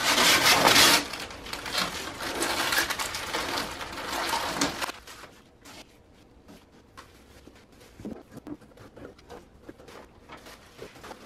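Clear plastic packaging bag crinkling loudly as it is pulled and bunched off the printer for about five seconds. It then drops to faint rustling with light clicks of handling.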